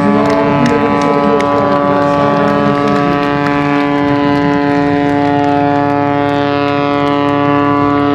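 MXS-RH aerobatic monoplane's piston engine and propeller running at high power, a loud, steady drone with many overtones holding one pitch.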